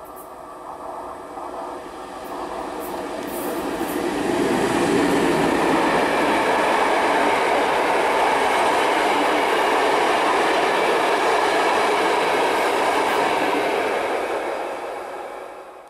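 A passenger train hauled by an EU07 electric locomotive passing through a station without stopping. The noise of wheels on rail builds over the first few seconds as it approaches, stays loud and steady for about ten seconds while the carriages go by, and fades near the end.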